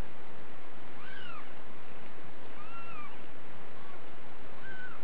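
Kittens mewing: about four short, high mews, each rising then falling in pitch, over a steady hiss.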